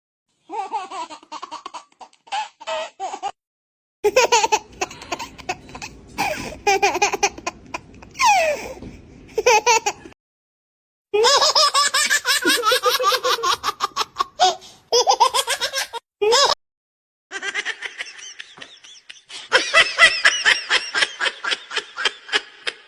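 Babies laughing: a string of separate baby-laughter sound clips, each a run of quick, high-pitched giggles and belly laughs, one after another with sudden silent gaps between them.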